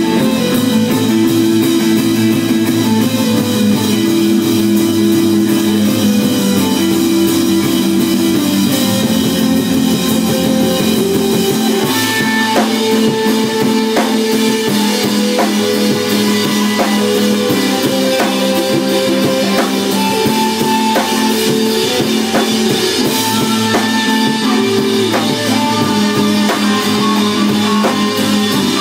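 Instrumental band jam: long held organ notes and chords with guitar over a drum kit. The drums come in more strongly about twelve seconds in, with regular hits from there on.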